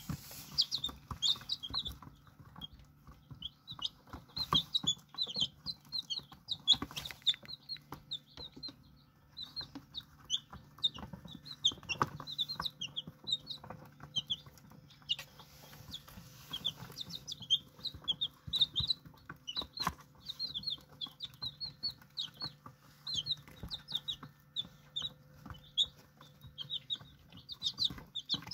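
Young chicks peeping: many short, high chirps, one after another, with scattered sharp taps of beaks pecking the floor. A faint steady low hum runs underneath.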